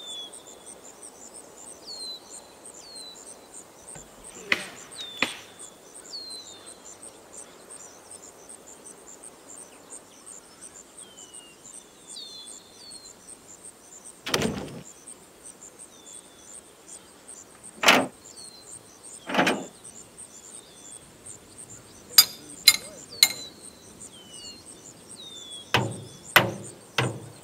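Steady high-pitched chirring of insects in the forest, with short falling chirps now and then, broken by occasional heavy knocks and thuds of pine logs being handled and loaded onto a truck. A quick run of sharp knocks comes a little before the end.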